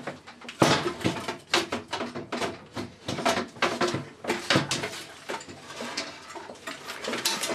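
Metal instrument chassis clattering and knocking against its metal case as it is lifted out: a rapid, irregular run of clicks and clunks, the loudest just under a second in.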